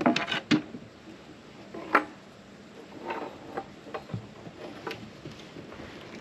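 Oars knocking and clunking in the oarlocks and against the hull of a small dinghy as it is rowed: a handful of sharp knocks, with a cluster at the start and the loudest knock about two seconds in.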